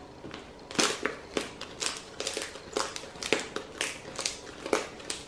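Homemade black slime squeezed and kneaded in the hands, squishing in short sticky strokes about three to four times a second, soft and without crunch.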